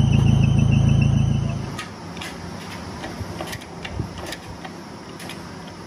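A machine running with a steady low hum, which dies away about a second and a half in. Light scattered clicks and taps follow.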